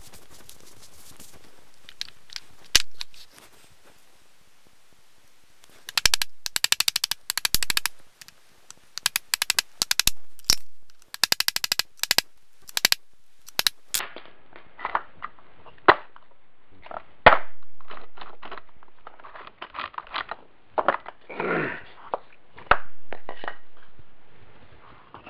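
Metal parts of a Wheel Horse lawn tractor differential clinking and knocking as its gears, case and cross shafts are fitted together, played at four times speed. Rapid runs of sharp clicks come in the first half, then separate, louder knocks that ring out briefly.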